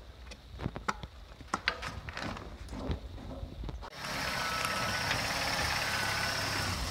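Scattered clicks and knocks of handling gear, then about four seconds in a steady car engine idle cuts in, with a thin steady whine over it.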